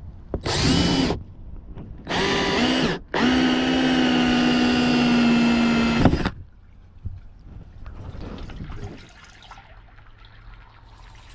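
Cordless power drill running in three bursts, two short and then one of about three seconds, with a steady motor whine as it bores the angled drain hole through the PWC's footwell.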